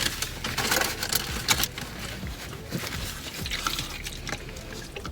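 Close-up eating sounds: irregular wet mouth clicks and rustles, louder in the first couple of seconds.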